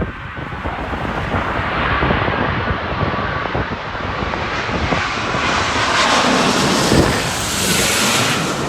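Jet engines of a British Airways Airbus A350-1000, Rolls-Royce Trent XWB-97 turbofans, passing and growing louder toward a peak about seven to eight seconds in. Wind buffets the microphone throughout.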